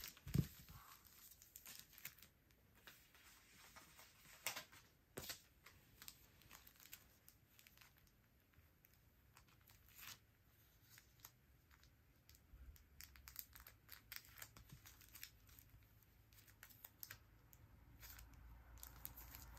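Clear plastic card sleeves crinkling and rustling quietly as hands press and handle them, with scattered light clicks and a soft tap just after the start.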